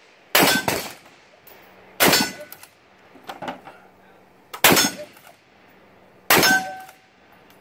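Four rifle shots from a Tikka T3 bolt-action rifle, roughly two seconds apart. A short metallic ring, typical of steel targets being hit, follows some of the shots, and small clicks of the bolt being worked come between them.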